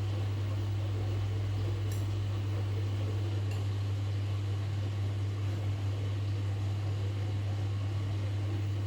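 Washing machine running with a steady low hum.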